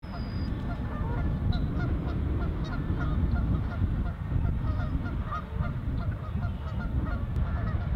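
A flock of geese honking, many short calls overlapping, over a steady low rumble.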